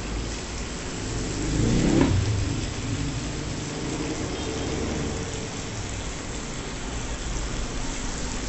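Meat sizzling on an electric grill plate over a steady low hum, with a louder swell that rises and falls about two seconds in.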